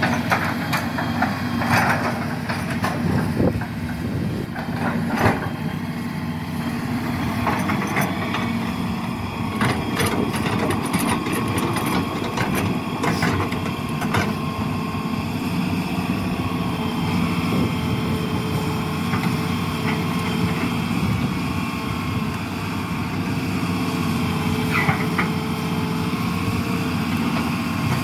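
Excavator's diesel engine running steadily, with scattered sharp knocks and snaps over it.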